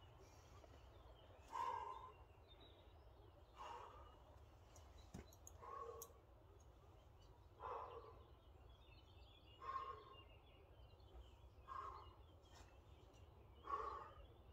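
A rock climber's heavy exertion breathing: seven short, voiced exhalations, about one every two seconds, the breathing of a pumped climber trying to recover on a hold. A couple of faint sharp clicks come around the middle.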